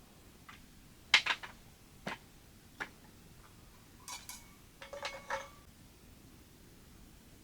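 Cookware and utensils being handled: a series of sharp knocks and clinks, the loudest about a second in, then two short clusters near the middle, some ringing briefly.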